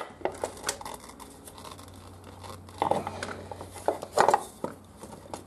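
Metal head cover of a Honda XL600V Transalp's front cylinder being wiggled and worked out by hand: scattered clicks, knocks and scrapes of the cover against the surrounding frame and engine parts, loudest about three and four seconds in.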